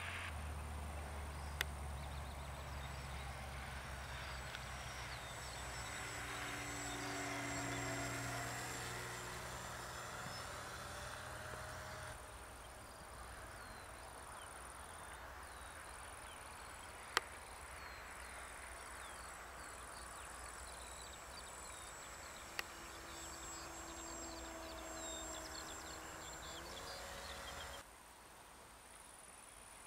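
Brushless electric motor and propeller of a radio-controlled Taylorcraft 450 model plane droning in flight, growing louder toward about eight seconds in and dropping away after about twelve seconds. Crickets chirp steadily underneath, with a few short sharp clicks.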